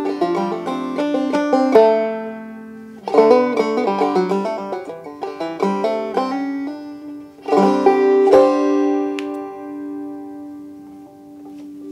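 A 1975 Stelling Starflower five-string banjo in modal gDGCD tuning plays the closing phrases of an old-time tune, with a brief gap about two seconds in. A final chord about seven and a half seconds in rings out and slowly fades.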